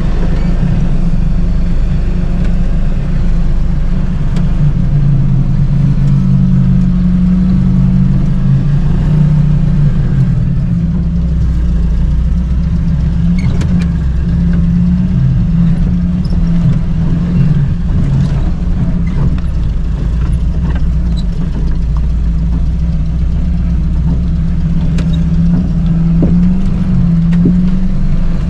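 UAZ off-road vehicle's engine running steadily under load as the vehicle creeps along at low speed, its pitch wavering slightly.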